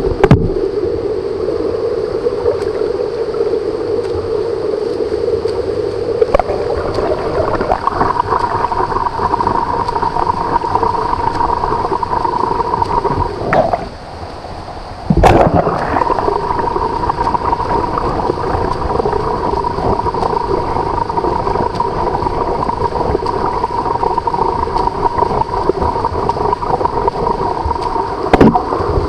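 Muffled, gurgling water noise of a swimmer swimming freestyle in a pool, with an even hum underneath. A few sharp knocks stand out, and the sound drops away briefly about halfway through.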